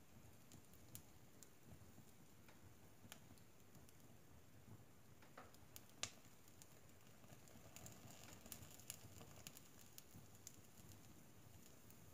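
Wood fire burning in a stove's firebox, logs and pine cones crackling faintly with scattered small pops. The sharpest pop comes about halfway through.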